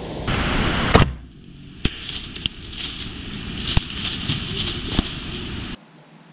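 Whitetail deer crashing off through dry leaves and brush just after an arrow shot, with a loud crack about a second in and a few sharp snaps of twigs; the rustling stops suddenly near the end.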